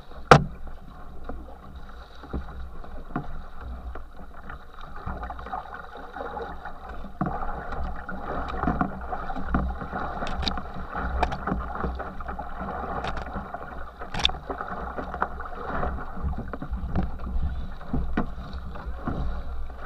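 Water rushing and splashing past the stern of a racing canoe under way, over a low rumble of wind on the microphone. Sharp knocks come at irregular intervals, the loudest just after the start.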